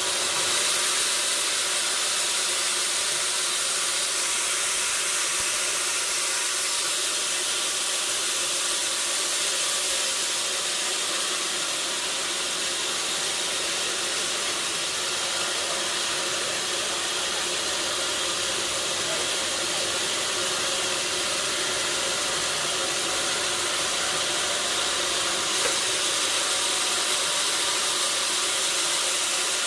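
Sawmill machinery running steadily, a constant hissing machine noise with a faint steady hum.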